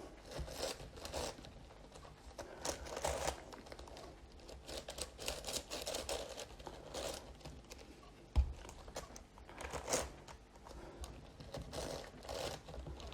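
Plastic pieces of a 15x15 Rubik's-style cube clicking and rattling in short, irregular spells as its layers are turned by hand. There is one low thump about eight seconds in.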